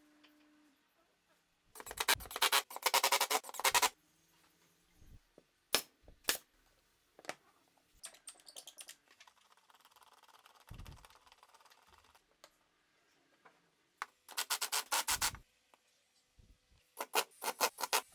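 A hand clamp being worked and tightened: three bursts of rapid mechanical clicking lasting one to two seconds each, with single sharp clicks and a light scraping between them.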